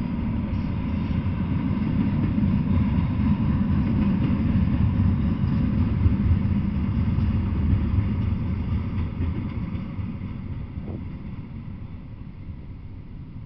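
Double-stack intermodal freight train rolling past, a steady rumble of steel wheels on rail that fades away over the last few seconds as the end of the train goes by.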